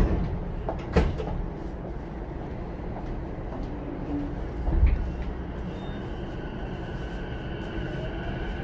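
E233-1000 series electric train pulling away from a station, heard from inside the car: a sharp knock about a second in and a low thud near five seconds as it starts to move. Then the Mitsubishi IGBT-VVVF inverter and traction motors set up a whine that slowly rises in pitch as the train accelerates.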